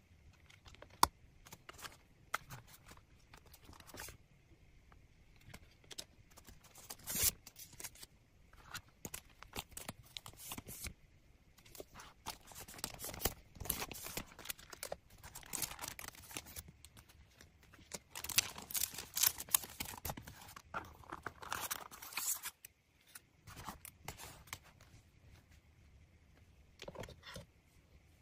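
Close-up paper and packaging handling: paper bags and cards rustling and crinkling, with small sharp clicks and taps of plastic items set down on a tray. The rustling comes in irregular bursts and is busiest and loudest about two-thirds of the way through.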